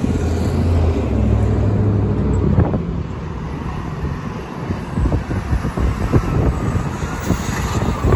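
A fire engine's diesel engine running as it drives up the street and passes close by among road traffic, louder near the end as it goes past. Wind buffets the microphone.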